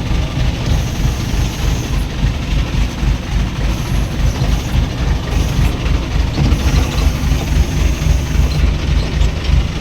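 A crane's engine running under load: a steady, heavy low rumble whose loudness wavers continually.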